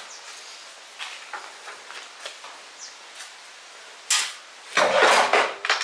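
Light taps and knocks from a steel car mudguard being handled on a workbench, then a short scrape about four seconds in and a longer, louder scraping rattle around five seconds in as the panel is lifted and moved.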